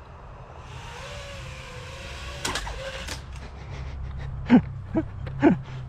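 Small FPV quadcopter's brushless motors and propellers whirring in flight, with a hissing rush and a faint wavering whine in the first half. Several short, sharp knocks come in the second half.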